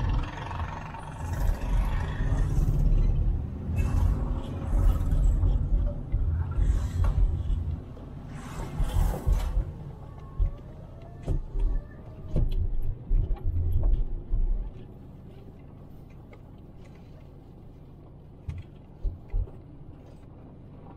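Low, uneven rumble of a car driving slowly on a city street, with several louder swells as traffic passes in the first half. About two-thirds of the way through it drops to a quiet steady hum, broken by a few short low thumps.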